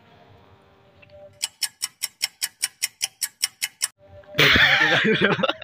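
Clock ticking sound effect, a quick even tick-tock of about five or six ticks a second for about two and a half seconds. It is followed near the end by a louder noisy burst with a wavering, voice-like pitch.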